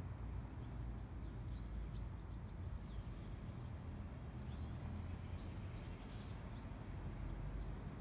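A steady low outdoor rumble with a few faint, short bird chirps scattered through the middle.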